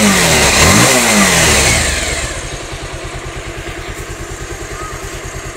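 220 motorcycle engine blipped a couple of times in the first two seconds, then settling into a steady idle. It runs without the banging it had before, its worn starter one-way clutch on the magneto side now replaced.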